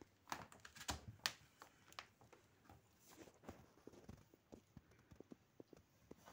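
Quiet scuffling and light tapping of a cat and kitten play-fighting, paws and claws scrabbling on wooden boards. There are a few sharper taps in the first second or so, then fainter scattered ticks.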